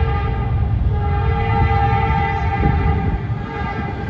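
Diesel freight locomotive's air horn sounding a long, sustained chord as the train approaches a grade crossing, over the low rumble of the oncoming train; the horn eases off briefly about three seconds in.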